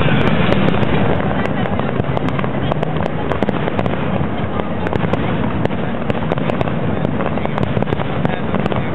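Aerial fireworks going off in a continuous run of sharp bangs and crackles as shells burst overhead.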